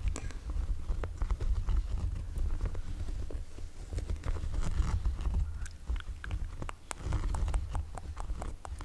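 Hands scratching, tapping and rubbing on the fabric of a hooded sweatshirt, making irregular close-up clicks and rustles over a steady low rumble.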